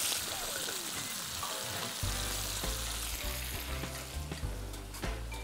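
Food sizzling in a frying pan with very little oil, stirred with a spoon; the sizzle dies down about three seconds in.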